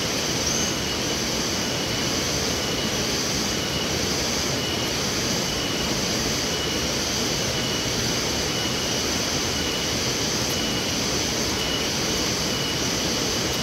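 Steady rushing noise with a high, faintly pulsing buzz above it.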